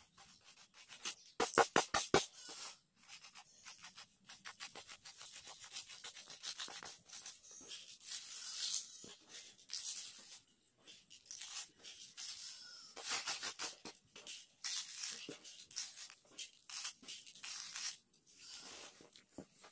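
Soil mix of clay loam and rice hull scraped and rustled over a plastic seedling tray by hand, in irregular scratchy strokes, with a quick run of clicks near the start.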